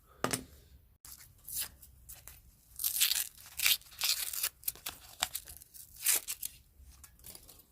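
Irregular crinkling and tearing noises of something being handled, in uneven bursts, loudest about three to four seconds in and again around six seconds.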